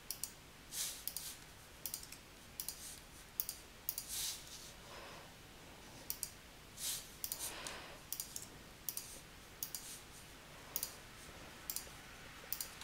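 Computer mouse buttons clicking irregularly, a click or two a second with several quick double-clicks, as shapes and colour swatches are selected.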